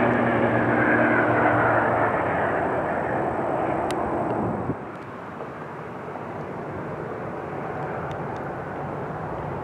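Jet engines of a Southwest Boeing 737 at high power on the runway, loud at first and fading as the airliner moves away. After a sudden drop about halfway through, a quieter steady rumble of a Delta Boeing 717 on approach slowly grows louder.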